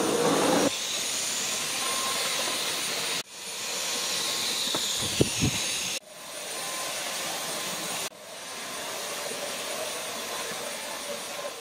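Dyson cordless stick vacuum running with a steady high hiss, breaking off sharply and starting again three times. There are two short knocks about five seconds in.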